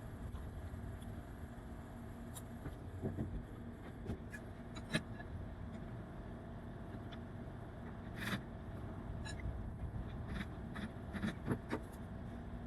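A steady low mechanical hum with several sharp clicks and knocks scattered through it.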